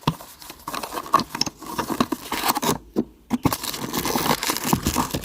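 Hands opening small toy packaging: an irregular run of scraping, rustling and small clicks of cardboard and plastic being peeled and pulled apart.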